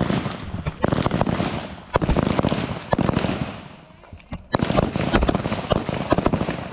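Rapid, irregular gunfire from several M4-type carbines on a firing line, the shots coming close together and overlapping, with a brief lull a little after the middle.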